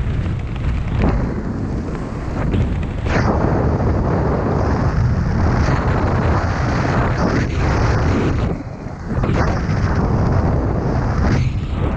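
Wind rushing and buffeting over a helmet-mounted camera's microphone during a descent under an open parachute canopy, loud and gusty, easing briefly about nine seconds in.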